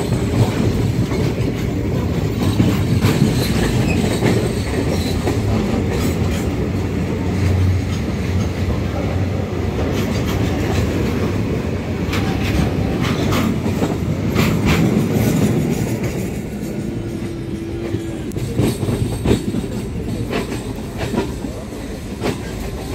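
Rumble and wheel clatter of an Indian Railways goods train of open-top wagons passing close by on the adjacent track, heard from a moving passenger train. The passing rumble eases about two-thirds of the way in, leaving the quieter clickety-clack of the train's wheels over the rail joints.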